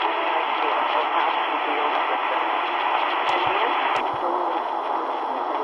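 Medium wave AM reception from the C.Crane CC Skywave SSB 2's speaker: steady static with a weak, distant station's voice barely showing through, which the listener takes for CKGM Montreal on 690 kHz. About four seconds in the audio turns duller as the bandwidth filter is narrowed, with a few faint clicks around then.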